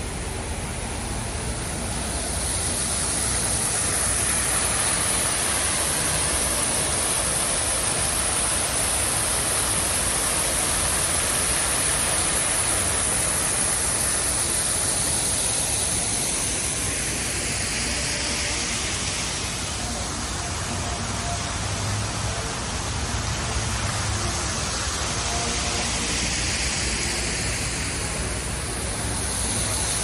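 Steady rush of water falling down an artificial rock waterfall into a pond.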